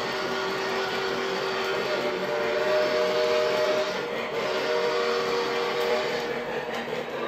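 A model train running with a steady whirring rumble. Its horn sounds a chord twice: a long blast about two seconds in, then a shorter one after a brief break.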